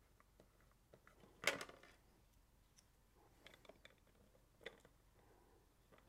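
Mostly near silence, with a few light clicks and taps of a clear plastic wind deflector being handled against a motorcycle's plastic fairing. The clearest click comes about one and a half seconds in.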